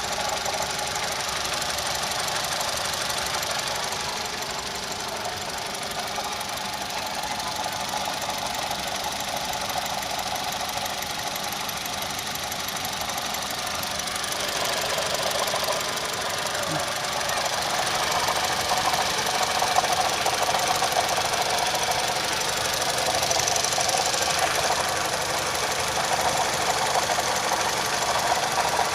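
Car engine running with a rapid, steady knocking clatter: a knock that appeared together with fault code P0016, crankshaft/camshaft position sensor correlation. It gets a little louder about two-thirds of the way through.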